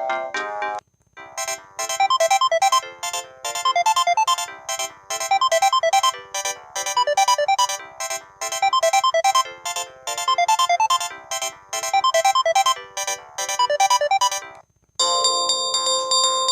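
Samsung SGH-T410 mobile phone playing its ringtones through its small speaker. One tone ends under a second in, and after a brief gap a new tinny melodic ringtone repeats the same short phrase about eight times. After another brief gap, a bell-like tone begins near the end.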